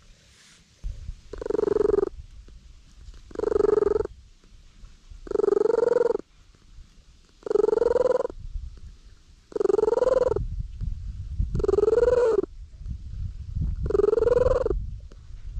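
Domestic cat purring loudly right at the microphone while being petted, in regular waves about every two seconds, each wave carrying a pitched hum with a low rumble between.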